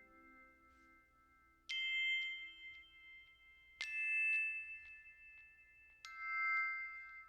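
Background music of bell-like struck notes, glockenspiel or chime, three strikes about two seconds apart, each ringing out and fading.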